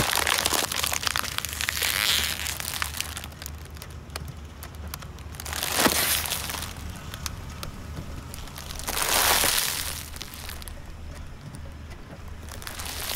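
Car tyre rolling over packaged snacks, a package of crunchy cookies and a bag of chips, crushing them: crinkling plastic wrappers and crunching food. It comes in four bursts a few seconds apart, the first and longest at the start.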